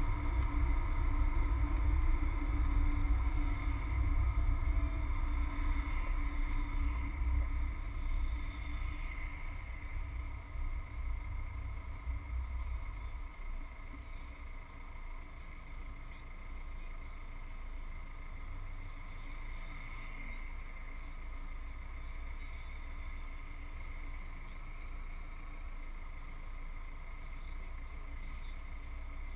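Subaru Forester driving, heard from inside the cabin: a low rumble of road and engine noise that eases about halfway through as the car comes to a stop in traffic, leaving a quieter steady idle.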